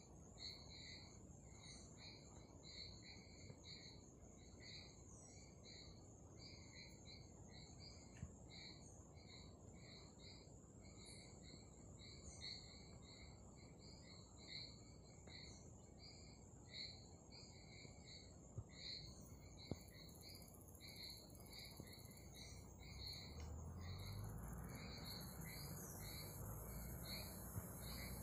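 Faint forest chorus: a chirp repeating steadily about twice a second over a high, continuous insect hum, with a few brief bird calls. A low rumbling noise grows in the last few seconds.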